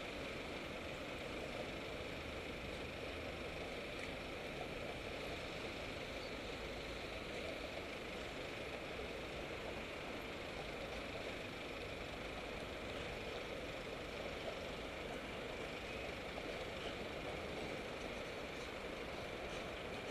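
Steady city street traffic at a busy intersection: car and van engines idling and passing.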